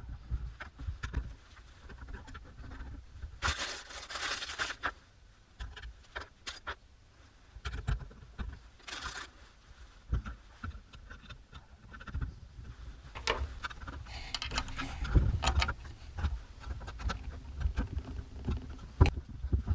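Small metal parts of a soldering helping-hands desk clamp being handled and fitted together: irregular clicks, taps and knocks, with a few longer scraping or rustling stretches, as the flexible arms are slotted into the base and screws and alligator clips are fitted.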